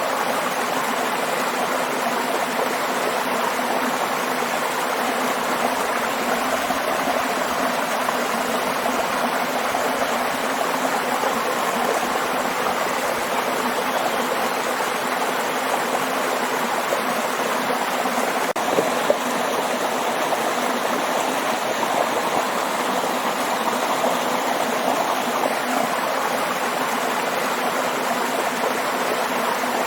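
Waterfall water rushing in a steady, unbroken stream, with a single faint click about two-thirds of the way through.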